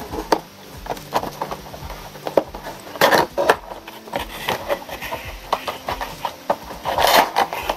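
A cardboard Funko Pop box with a plastic window being handled and turned over by hand: irregular clicks, knocks and rustles, with louder scraping rustles about three seconds in and again near the end.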